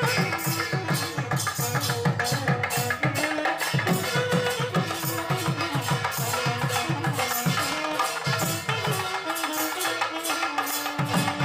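Music with a fast, even drum beat, rattling percussion and a melody line; the drum drops out briefly twice.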